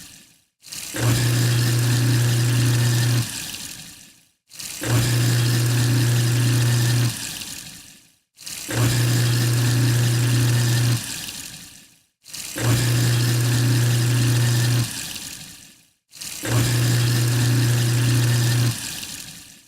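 Kitchen sink garbage disposal starting up and running with a steady low motor hum for about two seconds. The hum then cuts off and the grinding and watery noise dies away. This repeats five times, about every four seconds.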